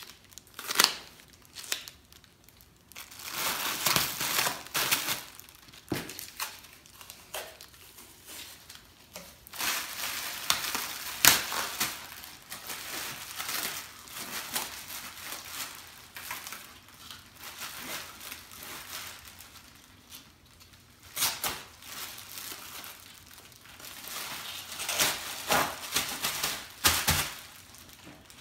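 Crinkling and crackling of a Blizzard Blanket's foil-like reflective sheet as it is handled and taped down around a casualty, in irregular spells with quieter gaps.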